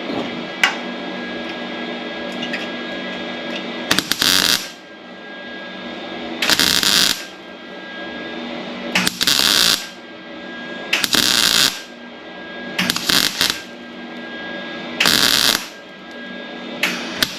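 Short bursts of welding as a patch panel is tacked to truck sheet metal. There are about seven crackling bursts, each under a second long and about two seconds apart.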